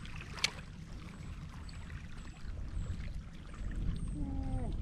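Wind rumbling on the microphone at the water's edge, with a single sharp click about half a second in and a short falling tone near the end.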